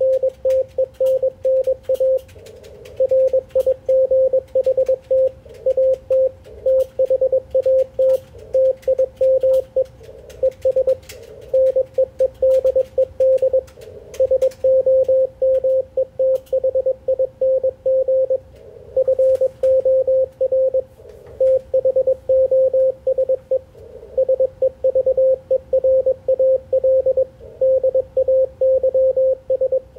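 Morse code (CW) from an Icom IC-746PRO transceiver: a single steady tone of about 550 Hz keyed on and off in short and long elements, dits and dahs, with short gaps between words and faint clicks above it.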